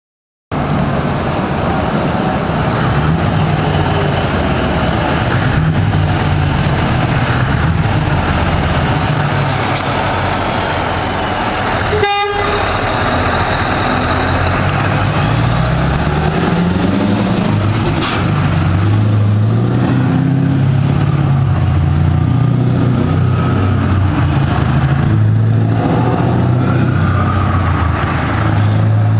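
Scania R620 truck's V8 diesel running through a straight-pipe exhaust as the truck drives past and pulls away, its deep note rising and falling as it revs through the gears. A short toot, likely the horn, sounds about twelve seconds in.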